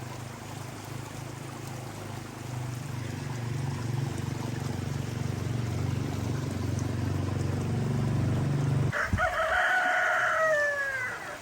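A rooster crowing once near the end: one long call that falls away at its close. Before it, a steady low hum that cuts off suddenly just before the crow.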